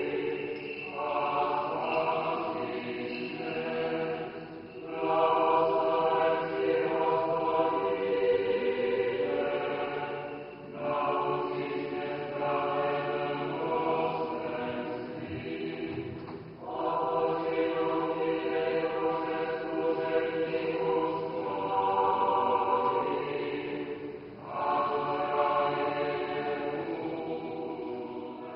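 Church choir singing Orthodox liturgical chant in long held phrases, with brief pauses between them; the singing fades out near the end.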